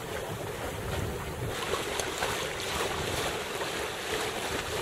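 Wind buffeting the microphone over the wash of water along the hull of a small gaff cutter under sail, a steady hiss that brightens about a second and a half in.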